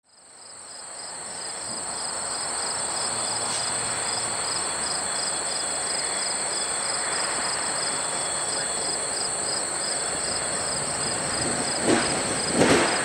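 Summer insects keep up a steady high drone and a pulsing trill about four times a second, over the steady running noise of an approaching train led by an EMD GP7 diesel locomotive. Near the end the wheels begin knocking loudly over the track.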